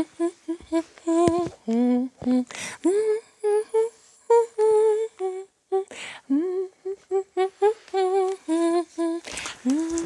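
A woman humming a light tune in many short, separate notes, with faint clicks and rustles between them.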